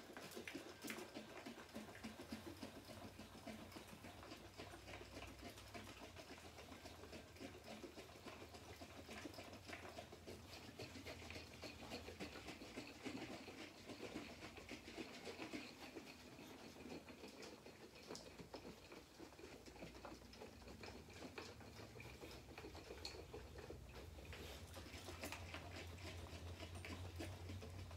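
Honey-and-water mead must sloshing and foaming inside a gallon glass carboy as it is shaken to dissolve the honey: a faint, continuous patter of small splashes and crackles.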